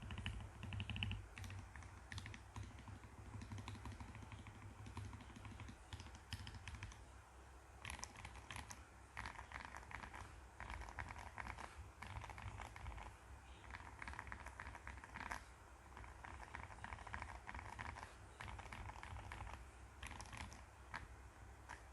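Typing on an Akko ACR Pro 75 mechanical keyboard: a quick, continuous run of keystroke clacks over a low steady hum.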